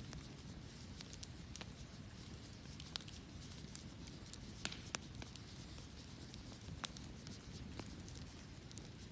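Wood fire crackling, with sharp irregular pops and snaps over a low steady rumble.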